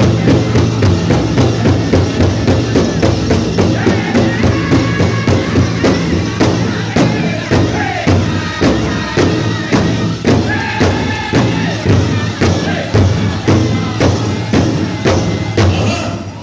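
Powwow drum group singing a chicken dance song over a big drum struck in a steady, fast beat, with jingling among the drumming. The song and drum stop together, cut off just before the end.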